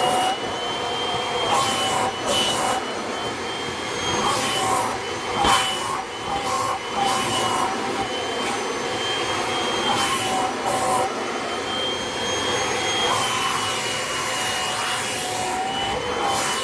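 Kirby Avalir vacuum running in hose mode, sucking at the carpeted surfaces of a cat tree with the bare hose end: a steady motor whine that wavers slightly in pitch as the airflow changes, with several short rushes of air and pickup along the way.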